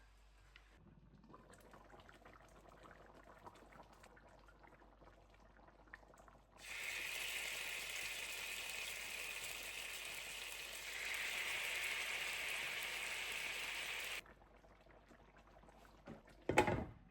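Water running from a tap for about seven seconds, its tone shifting partway through, then shut off abruptly. A sharp knock follows near the end.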